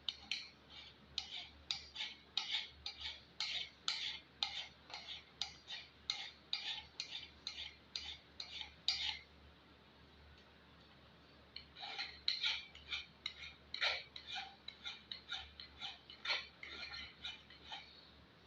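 Bastard file pushed in quick strokes across the steel edges of a fireman's hatchet's poll to take the sharp edges off: a rasping scrape about two or three times a second. It stops for about two seconds midway, then starts again.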